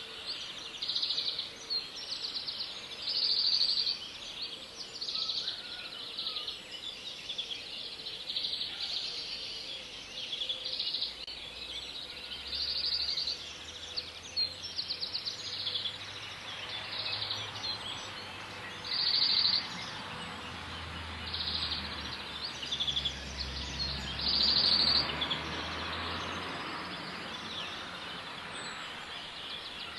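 Outdoor ambience of short, high, buzzy trills repeating roughly every two seconds, from a bird or insect that can't be told apart. Under them is a low rumble that swells through the middle and fades near the end.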